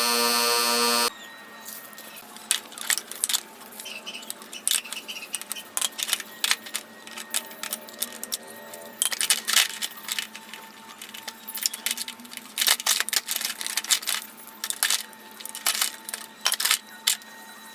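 A steady pulsing tone for about the first second that cuts off abruptly, then irregular sharp clicks and clinks of small metal parts and hand tools being handled.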